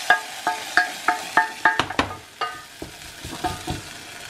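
A wooden spoon stirs a butter-and-flour roux in a stainless steel saucepan, knocking against the pan about three times a second so the metal rings briefly each time, over a light sizzle of the cooking roux. The knocks thin out and grow softer after about two seconds.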